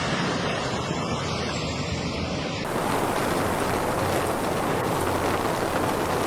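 Steady rushing of strong storm wind on the microphone. About two and a half seconds in it cuts to a fuller, brighter rush.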